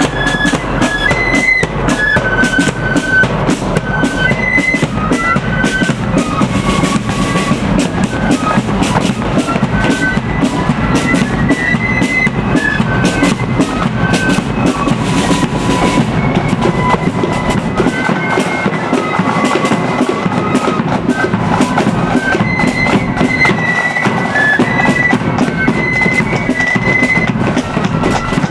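Marching flute band playing a tune on high-pitched flutes over a steady drum beat, with bass drum and snare strokes.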